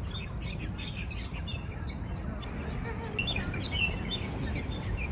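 Small birds chirping in quick, short, falling notes, with a busier, louder flurry of calls about three seconds in, over a steady low rumble of background noise.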